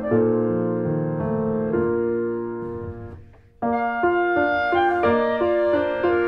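Piano music with sustained chords and changing notes. It dies away a little past halfway, then starts again abruptly.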